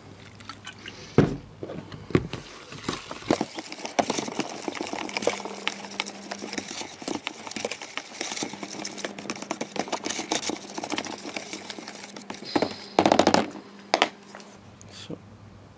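Metal spoon stirring a runny baking-soda and lemon-juice paste in a plastic tub, clicking and scraping rapidly against the sides. There is a loud knock about a second in and a short, loud clatter near the end.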